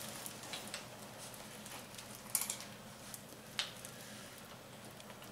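Quiet room tone with a few faint, sharp clicks and taps, the loudest about two and a half and three and a half seconds in, from hands handling the pushrods of a bare motorcycle cylinder head.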